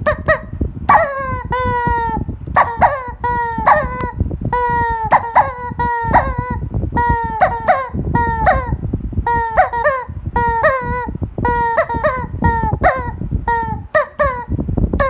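Rubber screaming-chicken toy squeezed by hand over and over, giving a string of short, high squawks, about two a second, each dropping in pitch at its end, over low thumping from the hand pressing it.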